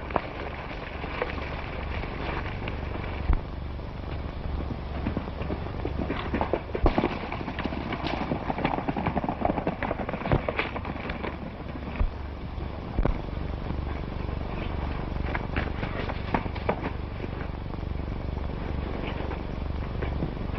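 Horses' hoofbeats as riders gallop away along a dirt trail, uneven knocks heard over the steady low hum and hiss of a 1930s film soundtrack.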